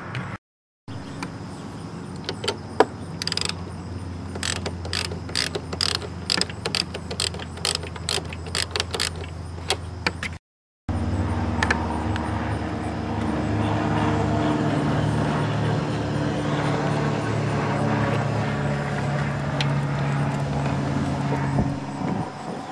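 Wire brush scrubbing a car battery's terminals in quick strokes, several a second, over a low steady hum. About halfway through the sound cuts, and a louder steady mechanical hum follows, with light clicks of the battery cable clamp being handled.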